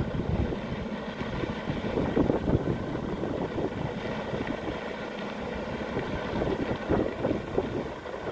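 Freightliner Argosy prime mover's diesel engine idling steadily, with wind rumbling unevenly on the microphone.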